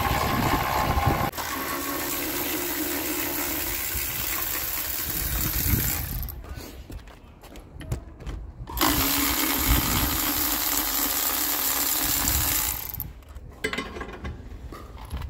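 Handheld power driver on a long extension running in two long bursts, the first about six seconds and the second about four seconds, as it undoes the bolt holding the generator's cooling fan and rotor. There are quieter clanks of handling between the bursts and after them.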